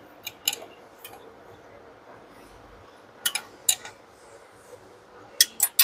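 Sharp metallic clinks and taps of tools and parts being handled on the engine, several coming in quick pairs, over a faint steady hiss.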